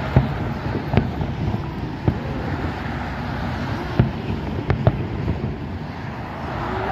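Fireworks going off in the distance: about six sharp bangs at irregular intervals, two of them close together near the five-second mark, over steady wind noise on the microphone.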